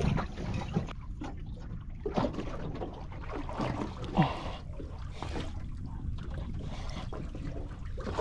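Small fishing boat on calm water: a low steady rumble with water trickling and a few light knocks and clicks, the sharpest about two and about four seconds in.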